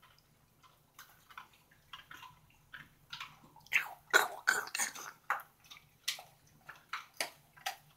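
A dog chewing and crunching a dog biscuit: short, irregular crunches, sparse at first and louder and more frequent from about halfway through.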